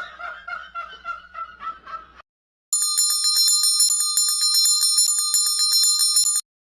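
A quiet pulsing chirp of short repeated notes, then a pause, then about three and a half seconds of bright, bell-like jingling with fast clicks that cuts off suddenly.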